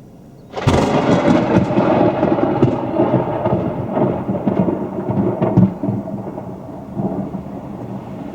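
Thunder from a close lightning strike: a sudden loud crack about half a second in, then several seconds of crackling, rumbling thunder that slowly fades.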